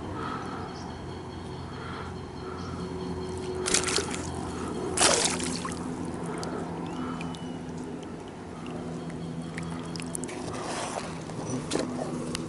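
A hooked yellow mojarra thrashing at the water's surface as it is brought to a float tube: water sloshing, with sharp splashes about four and five seconds in, the loudest at five, and another near the end.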